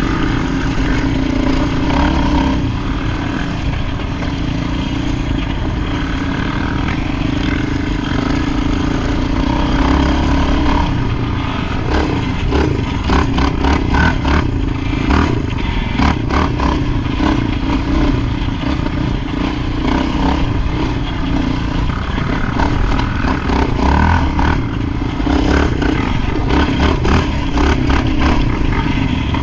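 ATV engine running under way, its throttle rising and falling, with stretches of rattling clatter about a third of the way in and again near the end.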